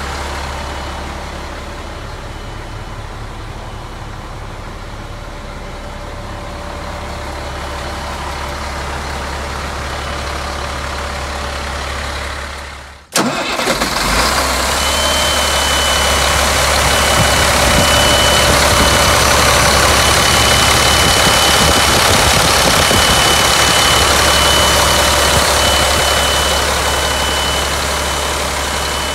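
Caterpillar 3126 inline-six diesel idling steadily. It is first heard muffled from inside the cab. After a cut about halfway through it is louder and closer with the hood open, and a thin steady high whine rides over the engine.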